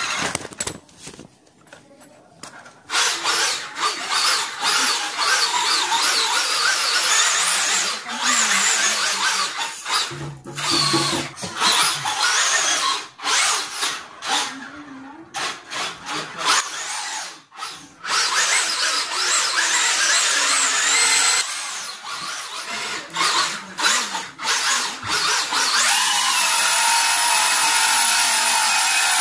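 Traxxas-powered RC car's electric motor and gears whining at high throttle, starting about three seconds in and cutting in and out in repeated short bursts, the pitch shifting as the car speeds up and slows.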